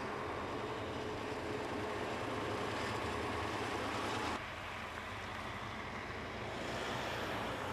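Engines of military vehicles running steadily, a low rumbling hum under outdoor noise. The sound drops abruptly about four seconds in, then carries on.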